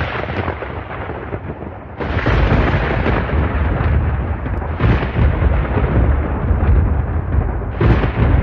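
Thunder sound effect: a continuous deep rumble with new cracks of thunder breaking in about two, five and eight seconds in.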